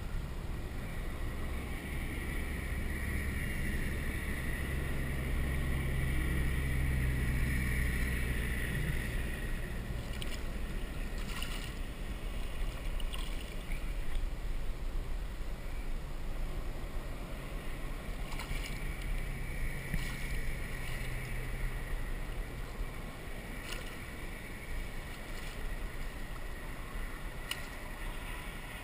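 Water lapping against a kayak hull with wind buffeting the microphone, and a low hum that fades in and out twice. A few sharp clicks come from the gear in the boat.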